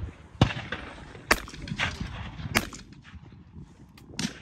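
Shotgun shots at clay targets: four sharp reports at uneven intervals, each followed by a short echo.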